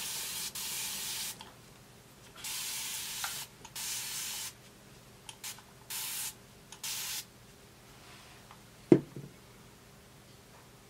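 Spray bottle spritzing water in about six short hissing bursts, wetting the wig glue to reactivate and loosen it. A single sharp knock near the end.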